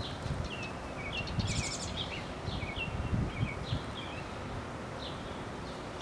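Small songbirds chirping in quick, short falling notes, with a brief rattling chatter about one and a half seconds in, over a low rumble of wind on the microphone.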